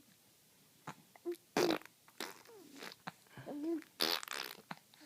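A five-month-old baby blowing raspberries, buzzing his lips to make fart sounds, several short ones with the longest about four seconds in. Brief baby coos come between them.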